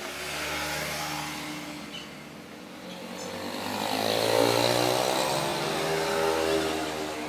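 A motor running, rising in pitch and loudness midway, then easing off near the end.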